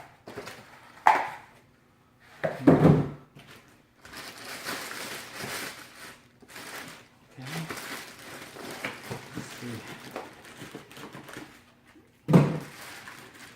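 Packaging being handled while unboxing: a long stretch of rustling, with a few sharp knocks and thuds, the loudest about 3 seconds in and near the end.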